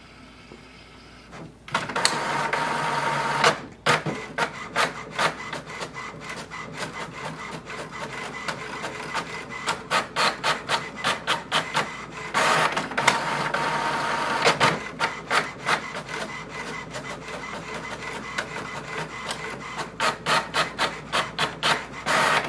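HP Envy 6455e inkjet printer printing a page. It starts about two seconds in: stretches of motor whirring as the paper feeds through, alternating with long runs of rapid ticking as the print carriage shuttles back and forth.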